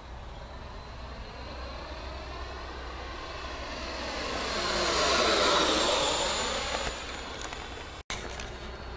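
Electric ducted fan of a Freewing Venom RC jet model (90 mm, 12-blade) making a fast pass: a whooshing whine that swells to its loudest about five to six seconds in, then fades. The sound breaks off for an instant just after eight seconds.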